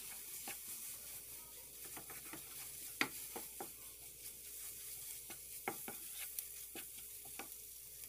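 Wooden spatula stirring and scraping a frying onion, garlic and flour mixture around a nonstick pan, with a faint steady sizzle and irregular taps of the spatula on the pan; the sharpest tap comes about three seconds in.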